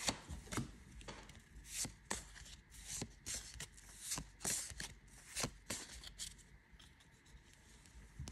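Pokémon trading cards being slid one by one from the back of a hand-held stack to the front: short, light card-on-card swishes and flicks, about two a second at an uneven pace.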